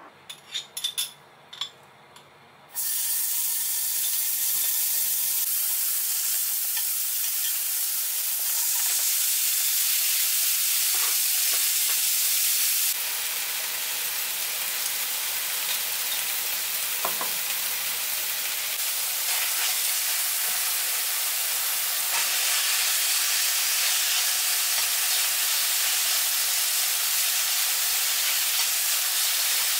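Minced garlic, then carrot and cabbage, sizzling in hot oil in a stainless steel frying pan as they are stir-fried. The steady sizzle starts suddenly about three seconds in, after a few faint clicks.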